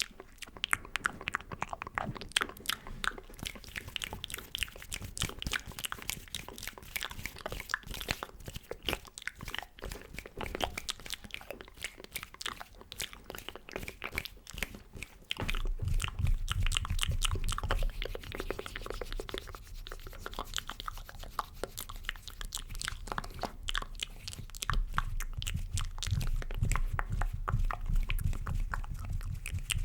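Close-miked ASMR mouth sounds: rapid wet clicks and smacks close to the microphone, with a low rumbling joining in about halfway.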